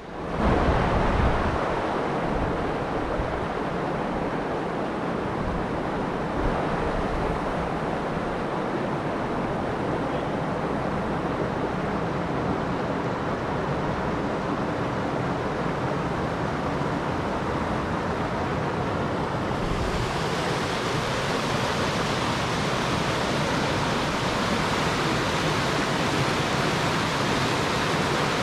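Water rushing over a river weir: a steady, even rush of white water. About twenty seconds in it turns brighter and hissier.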